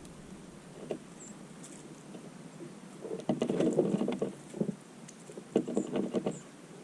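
Small birds feeding on scattered seed: irregular clusters of pecking taps and wing flutters, with a few short, high chirps.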